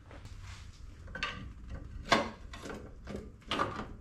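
A series of irregular clunks and scrapes, about six in four seconds, from tools and metal parts being worked under the car as the K-member is shifted back into line with its mounting holes.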